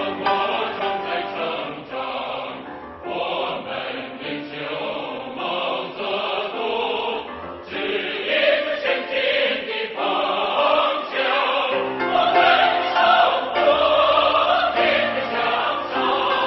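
Background music with a choir singing.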